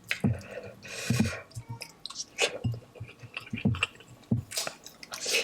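A person chewing spicy instant noodles close to the microphone: irregular wet, squishy mouth sounds, with a few louder, short rushing noises.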